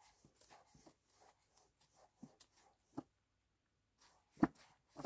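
Paper pages of a book being turned by hand: soft rustling with a few sharper page flicks, the loudest about four and a half seconds in.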